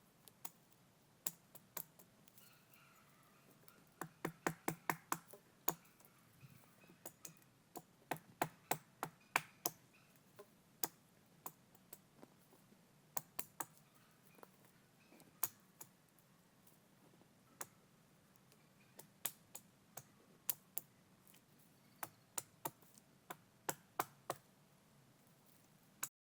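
A long run of sharp, short knocks at an irregular pace, sometimes coming in quick runs of four or five a second.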